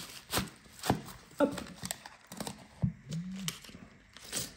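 Small hard objects being handled and set down on a work surface: about five separate sharp clicks and taps.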